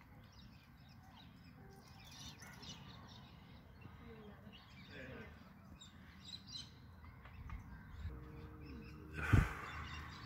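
Outdoor ambience with birds calling on and off, short scattered high calls over a low background rumble. One sudden loud thump comes near the end.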